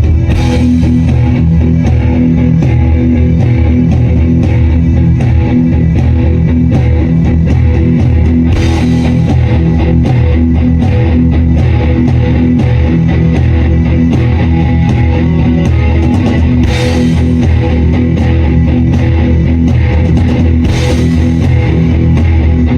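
Rock band playing loudly: electric guitar, bass and drum kit, with crash cymbal accents near the start, about a third and two thirds of the way through, and near the end. It is a band's sound check.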